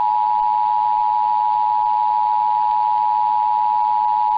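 Emergency Alert System attention signal: the two-tone alarm (853 Hz and 960 Hz sounded together) holding steady, as relayed by a broadcast station during the Arizona Required Monthly Test, just ahead of the spoken test announcement.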